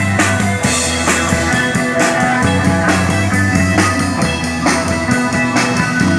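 A live rock band playing an instrumental passage: drum kit keeping a steady beat under bass and distorted electric guitar.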